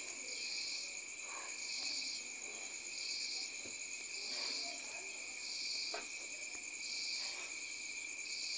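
Insects chirping: a steady high trill, with a louder pulsing chirp repeating a little less than once a second.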